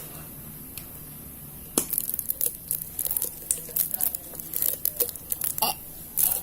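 Crinkling and tearing of packaging, handled by hand: quiet for the first couple of seconds, then a busy run of sharp crackles and clicks.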